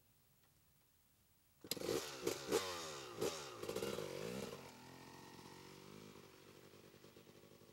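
Small dirt bike engine starting suddenly about a second and a half in and revving up and down several times, then dropping to a lower, steadier run that fades as the bike rides away.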